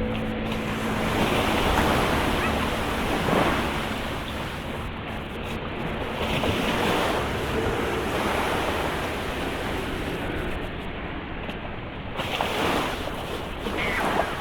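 Surf washing onto a beach, swelling every few seconds, with wind buffeting the microphone.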